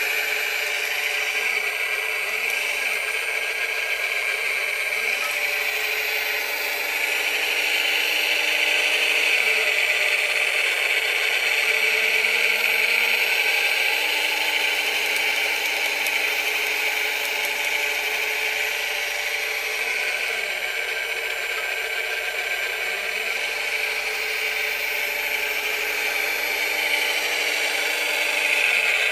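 Radio-controlled scale model Caterpillar 966 wheel loader driving and working its bucket: a steady high electric whine from its motors and gearing, with some rattle, swelling a little about a quarter of the way in and again near the end.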